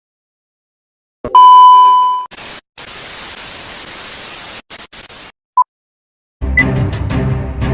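Electronic sound effects: a loud, steady high beep that fades after about a second, then about two seconds of hissing static that cuts out in short chunks, and a brief beep blip. Music with a beat comes in near the end.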